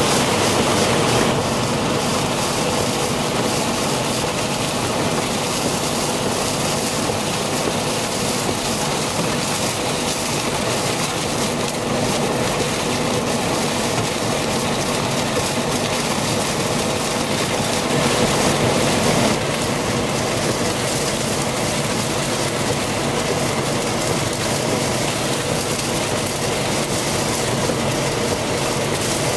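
Steady, loud rush of a heavy rainstorm and rough floodwater, with a faint steady hum underneath; it swells briefly about two-thirds of the way through.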